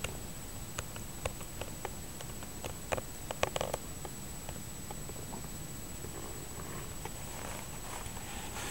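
Cats shifting close to the microphone: scattered small clicks in the first few seconds, a brief rustle midway and a softer rustle near the end, over a low steady rumble.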